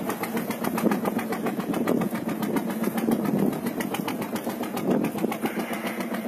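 Boat's engine running steadily, with an even, rapid pulse.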